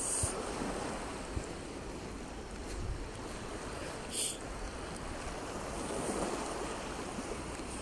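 Wind buffeting the microphone in low thumps over the steady wash of small waves on a sandy shore.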